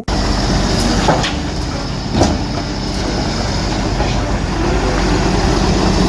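Diesel engine of a Hyundai HW160 wheeled excavator running as it digs, a steady rumble with two short knocks about one and two seconds in.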